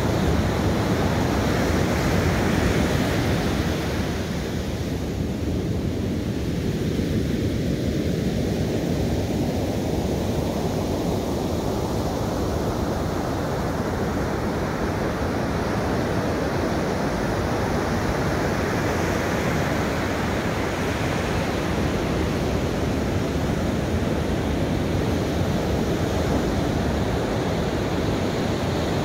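Ocean surf breaking and washing up a sandy beach, a steady rush of waves. The hiss thins a few seconds in, then swells back up over the next ten seconds as another wave comes in.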